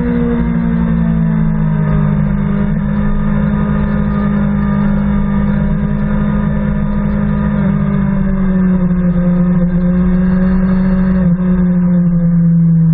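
BMW S1000RR's inline-four engine running, heard onboard: the engine note falls over the first couple of seconds as the bike slows from about 130 km/h, then holds a steady pitch through the turn. Wind rushes over the microphone, most strongly at the start while the speed is highest.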